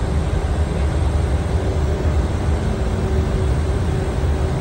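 Steady cockpit noise of a Gulfstream G550 in flight on approach: an even low rumble of airflow and engines, with a faint steady hum.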